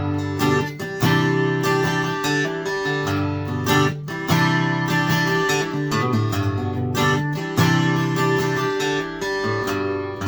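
Applause by Ovation AA14 deep-bowl acoustic guitar being strummed, the chord changing every second or so.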